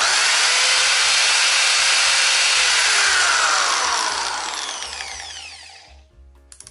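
Ferrex 610 W corded impact hammer drill running with no load at its highest speed setting, then released about three and a half seconds in, its motor whine falling in pitch as it spins down and fades out.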